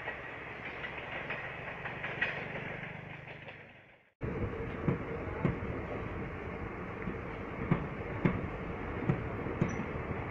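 Indian Railways train running, its sound fading out to a sudden cut about four seconds in; then another train passing, its wheels clacking repeatedly over the rail joints.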